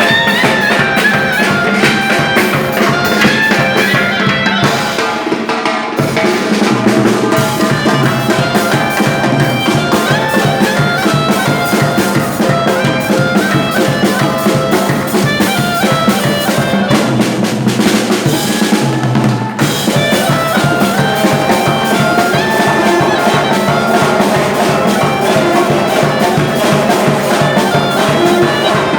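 Loud festive band music: reedy wind and brass instruments playing a melody over a fast, steady drum beat.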